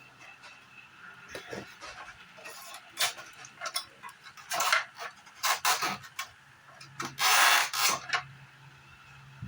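Scraping and rubbing of parts being handled during an air-conditioner teardown: several short scrapes, with a longer, louder one about seven seconds in, over a faint steady hum.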